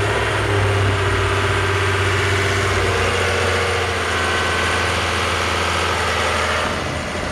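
Yanmar inboard marine diesel engine of a Tobiuo 32 boat running steadily at around 2,000 rpm.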